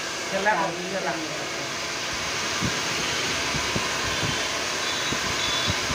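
Hand-held hair dryer blowing steadily as hair is blow-dried and styled with a round brush.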